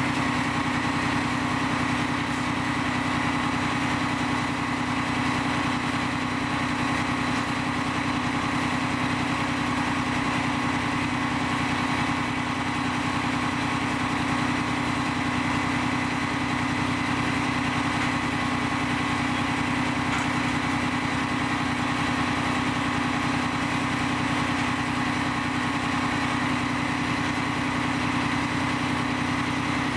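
Fire engine's motor running steadily beside the microphone, a constant hum with a steady higher whine over it.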